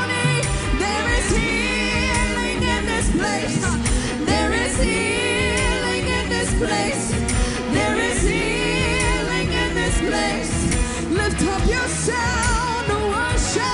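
Live worship music: a singer holds long, wavering, sliding notes without clear words over a band with steady bass and drums.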